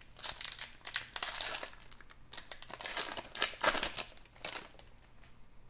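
Crinkly plastic wrapper of a 1992-93 SkyBox basketball card pack being torn open by hand, crinkling in irregular bursts that are loudest about two-thirds of the way through and die away near the end.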